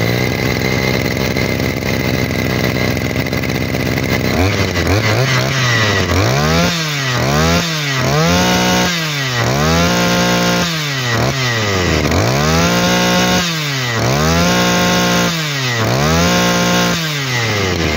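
Shindaiwa 260 brush cutter's 26 cc two-stroke engine idling, then, from about four seconds in, revved up and down over and over, roughly once every second and a half, with the throttle worked by hand at the carburetor.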